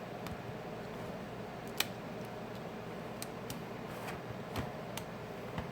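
Scattered small, sharp clicks and taps of a tool prying at a smartphone's plastic clips and connectors, the loudest about two seconds in, over a steady low hum.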